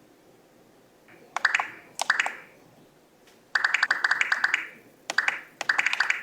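Skyloong GK104 Pro mechanical keyboard being typed on in quick bursts of keystroke clicks, starting about a second in, with a longer run of rapid keystrokes around the middle.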